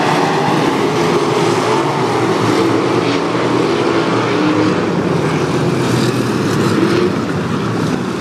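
A field of USAC sprint cars' 410-cubic-inch V8 engines running hard around a dirt oval: a loud, steady drone of several engines at once, its pitch wavering slightly as the cars go around.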